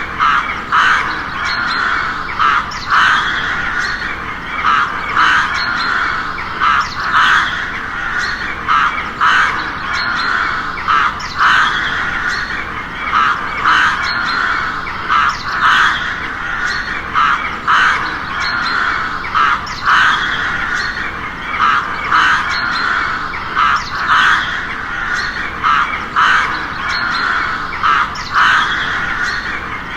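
Crows cawing over and over, short harsh calls coming about once or twice a second, with more calls overlapping behind them.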